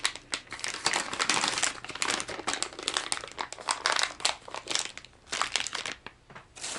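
Crinkling of a plastic soft-plastic bait package being handled in the hands, in irregular bursts, with a short lull near the end.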